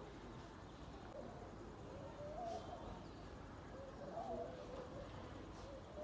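Faint bird calls: a few short wavering cooing notes, about two seconds in, about four seconds in and near the end, over a steady outdoor background hiss.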